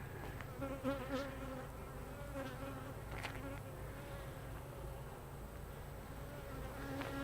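Honey bees buzzing around an opened hive: a steady low hum, with single bees passing close to the microphone so the pitch wavers and swells.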